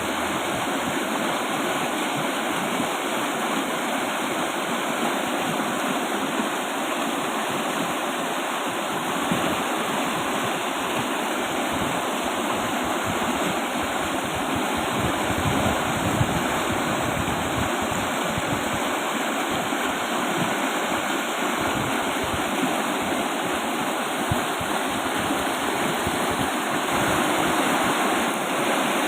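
A strong-flowing river rushing steadily, a dense continuous roar of water.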